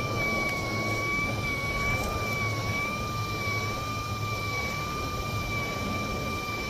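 A motor running with a steady high whine that wavers slightly in pitch, over a low rumble of wind on the microphone.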